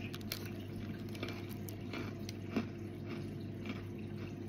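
Chewing a small, hard Cookie Time cookie with the mouth closed: faint, regular crunches about two to three a second, with one louder crunch a little past halfway.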